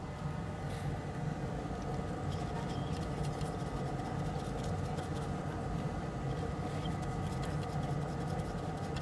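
Faint scattered clicks and light scraping of small hand tools working on a circuit board, over a steady electrical hum from bench equipment.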